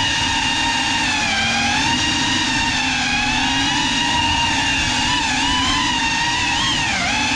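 GEPRC CineLog35 cinewhoop quadcopter's brushless motors and ducted propellers whining, the pitch wavering up and down as the throttle changes, with a quick dip and recovery near the end. Heard through the GoPro mounted on the drone.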